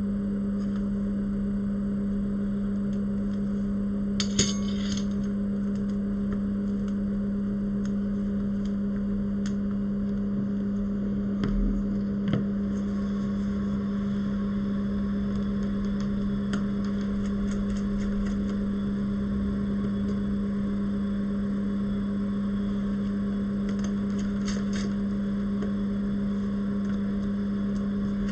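Steady low electric hum of bench equipment, with a few light clicks and metallic taps about four seconds in, around twelve seconds in and near the end.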